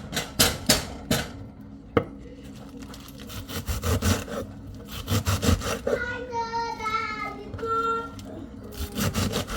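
Knife work on a wooden cutting board: several sharp knocks, then a run of quick chopping strokes. A child's high voice sings briefly a little after the middle.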